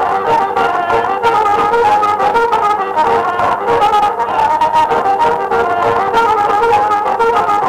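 Accordion playing an instrumental solo melody in a Serbian folk song, in held, reedy notes over a steady rhythmic band accompaniment, with no singing.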